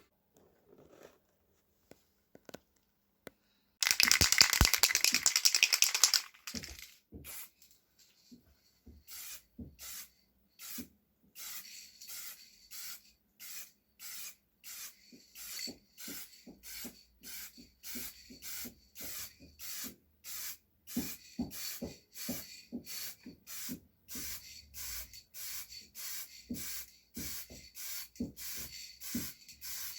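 A loud hiss lasting about two seconds, then a long run of short, even rubbing strokes, about two a second, from hand-scrubbing or sanding a surface.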